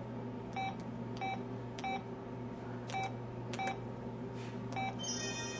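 KTF-X3500 mobile phone's keypad beeps: six short, identical single-pitch beeps, each with a click, at uneven spacing over a steady low hum. Near the end a different, brighter electronic tone pattern from the phone begins.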